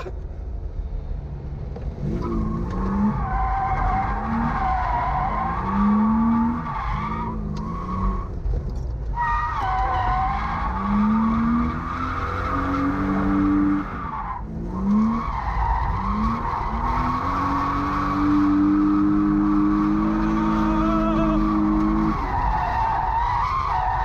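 BMW E36 drifting: the engine revs climb and drop again and again, held high for several seconds near the end, while the tyres squeal and skid.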